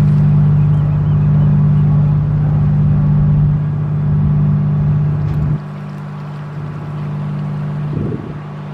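A motor engine running steadily nearby with a low, even hum; about five and a half seconds in it drops sharply in level and loses its deepest rumble, though a fainter hum carries on.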